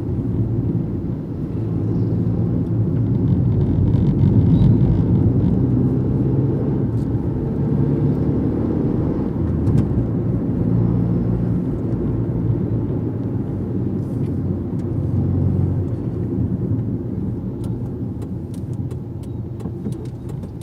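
A car driving along a road, heard from inside the cabin: a steady low drone of engine and tyre noise that eases off slightly near the end.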